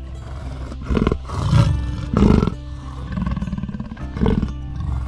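A large animal roaring in about four separate bursts over steady background music.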